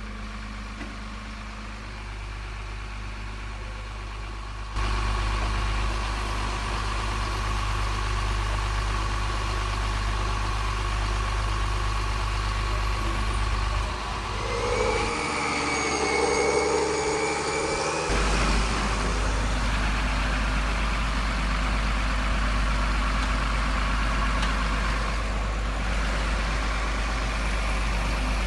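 Simulated diesel truck engine from an RC truck's sound module, running steadily at idle with a constant hum. It gets louder about five seconds in, and the sound changes briefly for a few seconds past the middle.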